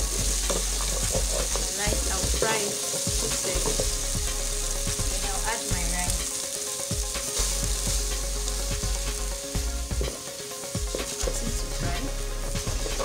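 Chopped onions frying in hot vegetable oil in a metal pot: a steady sizzle, with a wooden spatula scraping and tapping the pot as it stirs. By the end, parboiled rice is in the oil and being stirred.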